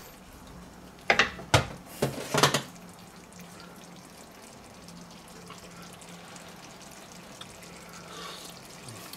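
Wooden spatula scraping and knocking against a nonstick frying pan of thick sauce, several clattering strokes about a second in, then the spatula is laid down in the pan. Afterwards only a low steady hum and faint liquid simmering.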